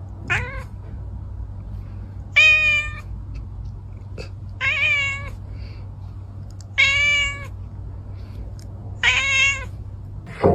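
A cat meowing: four drawn-out meows evenly spaced about two seconds apart, after a fainter short one at the start, over a steady low hum.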